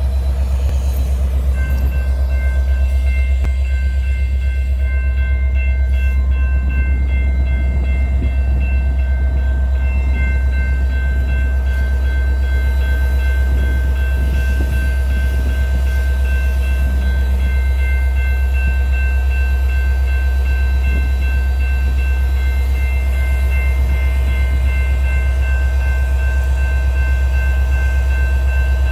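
BNSF GP60M-3 diesel-electric locomotive running with a loud, steady, deep engine rumble, joined about a second and a half in by a steady high whine.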